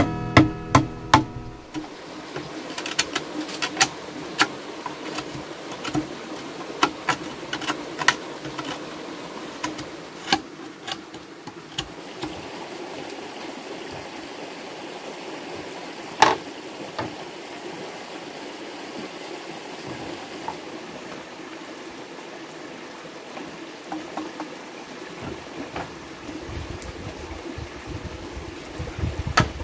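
Blade chopping and tapping into bamboo and wood: sharp knocks, several at a time in the first third, with one loud strike about halfway through. Underneath runs a steady background of running water and insects. Background music fades out in the first two seconds.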